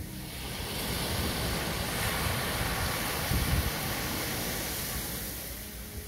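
Small sea waves breaking on a sandy beach: a hiss of surf that swells about half a second in, as the wash runs up the sand, and eases off again near the end.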